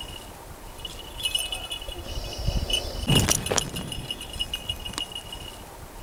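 Small bells jingling in quick, repeated rings, as on a working falconry hawk or dog, with a couple of sharp knocks about three seconds in.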